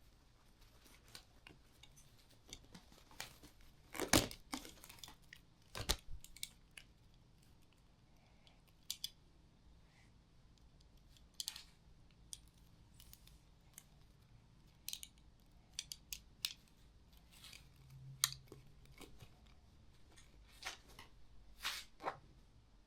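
Scattered short rustles and clicks of things being handled, the loudest about four and six seconds in.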